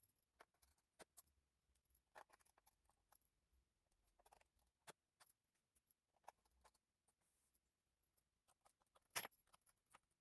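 Faint, scattered clicks and light scrapes from hands handling small laptop parts, with one sharper click about nine seconds in.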